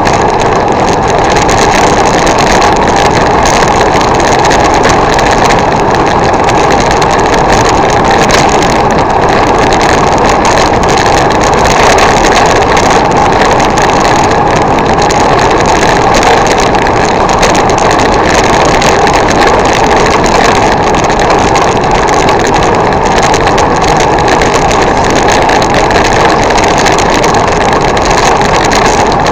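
Loud, steady rushing noise picked up by a bicycle-mounted camera while riding: wind over the microphone and tyres on a wet road, unchanging throughout.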